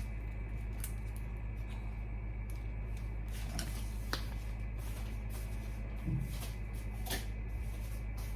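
Kitchen handling sounds: a few sharp clicks and taps, and a soft low thump about six seconds in, over a steady electrical hum.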